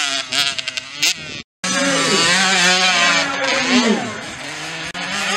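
Small two-stroke youth motocross bike engines revving hard, their pitch rising and falling as the bikes accelerate and shift. The sound cuts out completely for a moment about one and a half seconds in.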